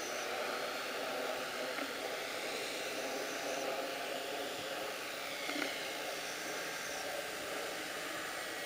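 Electric RC model plane (Hobbyking Yak 54) flying low on its landing approach: the motor and propeller run with a faint whine that drifts in pitch, over a steady hiss.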